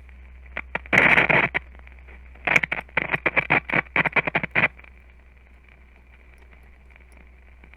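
Philco 53-956 tube radio's speaker crackling and popping in two irregular clusters, then settling to a steady low hum and faint hiss about two-thirds of the way in. The owner takes the crackle for silver mica disease.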